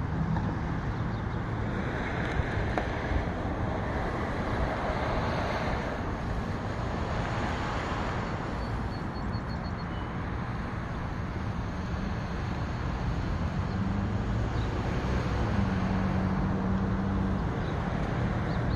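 Steady road traffic noise with wind rumbling on the microphone; a low engine hum grows stronger in the last few seconds.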